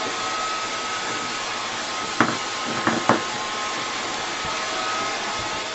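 Hand-held hair dryer blowing steadily with a faint high whine, and three short sharp sounds a little past two and three seconds in.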